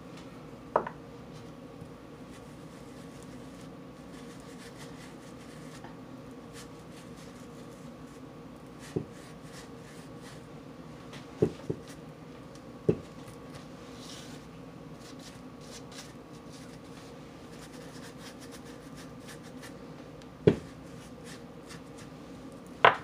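Hands handling a glitter shaker and a brush: about seven sharp little taps scattered over a faint steady hum.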